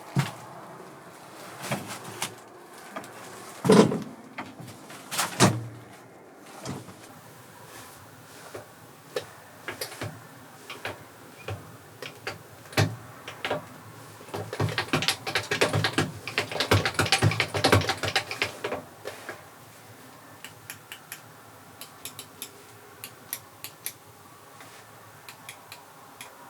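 Irregular knocks and clicks, with a run of rapid clatter lasting about four seconds from around fifteen seconds in.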